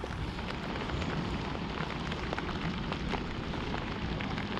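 Steady rain falling, with scattered sharp taps of drops landing close by.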